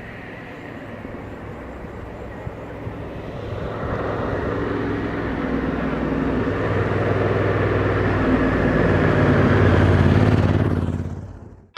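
Honda Africa Twin motorcycle running with a steady rush of wind, growing steadily louder as the engine's low note strengthens, then fading out quickly near the end.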